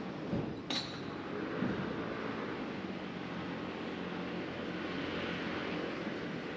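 Busy street ambience with a motor vehicle's engine running steadily close by, and a single sharp click less than a second in.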